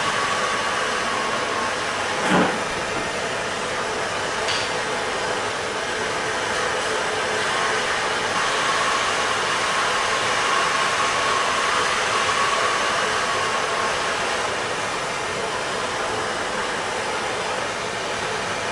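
Handheld gas torch flame hissing steadily as it heats a copper fitting for soldering. A brief knock sounds about two seconds in.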